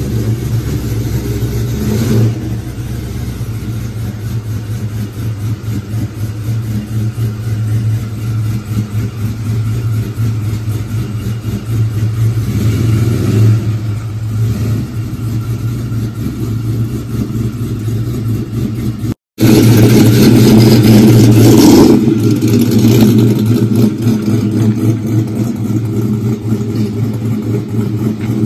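Engine of a cammed GMC Sierra single-cab pickup idling steadily. About two-thirds of the way through, after an abrupt break, it runs much louder and revs. Near the end the truck is pulling away.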